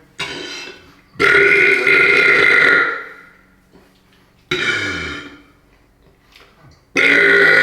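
A man burping repeatedly in a bathroom with a pretty good echo: a long burp lasting nearly two seconds about a second in, a shorter one in the middle, and another starting near the end, each trailing off in the room's echo.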